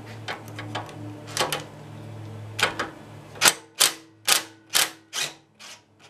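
Socket ratchet being worked on the nut of a rototiller's belt bracket: a run of sharp ratchet clicks, lighter at first, then about six louder clicks roughly two a second.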